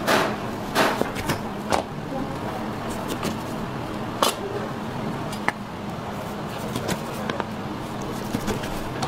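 Knife slicing raw beef on a plastic cutting board: a handful of sharp taps and knocks, most in the first two seconds and another about four seconds in, over a steady background hum.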